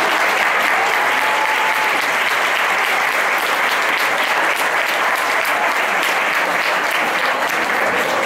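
Theatre audience applauding steadily as the curtain closes on the act.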